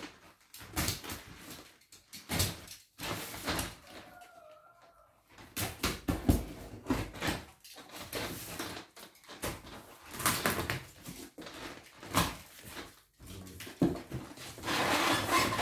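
A cardboard shipping box being cut and torn open: irregular bursts of scraping, tearing and rustling from tape, cardboard and plastic wrap, with a few sharp knocks.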